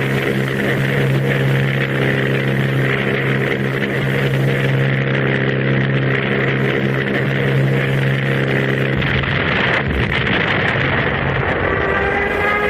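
An engine running at a steady pitch under a dense hiss. Its low drone breaks off about nine to eleven seconds in, and near the end a slowly rising, siren-like wail begins.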